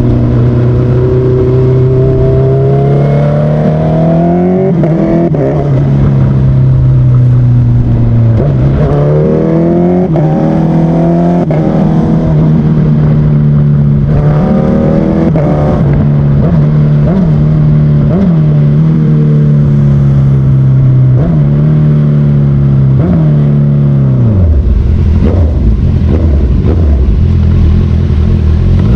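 Honda CBR motorcycle engine running loud and steady, with repeated quick throttle blips that send the revs up and back down many times; near the end the engine note drops lower.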